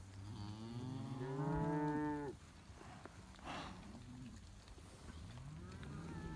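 Cattle mooing: one long bawl lasting about two seconds, then a second moo starting near the end.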